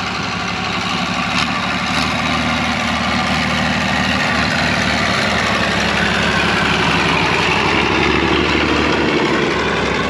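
Tractor engines running: a John Deere 2850 idling steadily close by while a vintage tractor towing a single-chop forage harvester drives up and past, its sound growing stronger toward the end.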